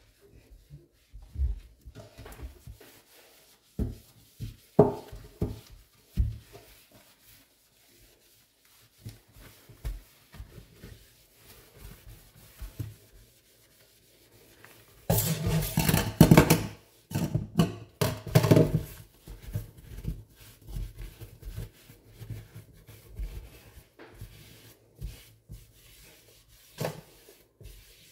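Scouring sponge rubbing and scrubbing a stainless-steel sink and its faucet, with scattered light knocks and taps. There is a louder stretch of rubbing about halfway through.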